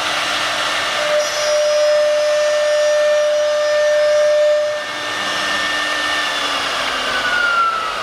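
CNC router spindle cutting a wood board: a steady high whine over the rasp of the bit in the wood. A second tone begins to fall in pitch about six seconds in.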